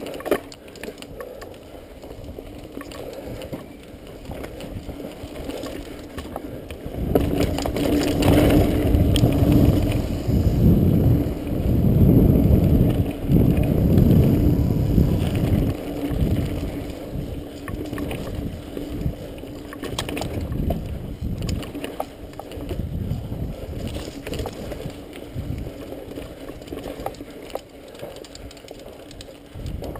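Mountain bike riding down a dirt trail: a continuous rush of wind on the microphone and tyre rumble, much louder for several seconds from about a quarter of the way in to about halfway, with scattered clicks and rattles from the bike.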